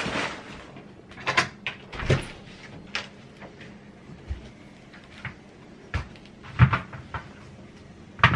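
Clicks, clunks and knocks of a door being opened and handled: a string of separate sharp knocks, the loudest about six and a half seconds in.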